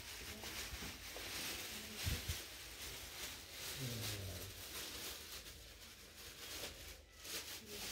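Shop room tone: a steady hiss with faint distant voices and a short low thump about two seconds in.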